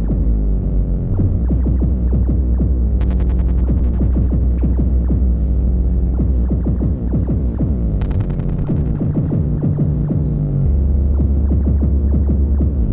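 Live electronic music: a steady, deep throbbing bass note under repeated falling pitch sweeps, with sharp percussive hits about 3 and 8 seconds in; the bass note shifts to a different pitch near the end.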